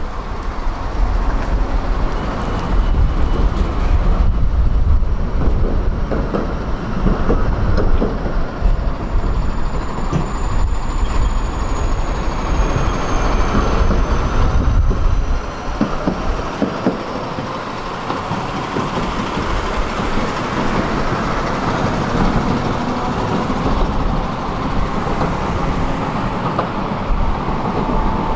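Electric tram running on its rails, heard from inside the car: a heavy low rumble from the wheels with a thin high whine from the drive that slowly falls in pitch. About halfway through the rumble drops away and the sound grows quieter as the tram slows.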